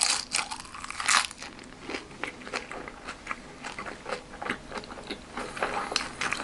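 A bite into a crisp fried spring roll followed by crunchy chewing: two loud crunches at the start and about a second in, then a run of smaller crunches.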